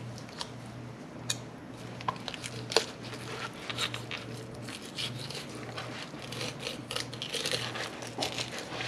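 Fillet knife cutting along a tilapia's back through its big, hard scales and thick skin on a plastic cutting board: a run of short scraping, crackling strokes, with a few sharper clicks in the first three seconds.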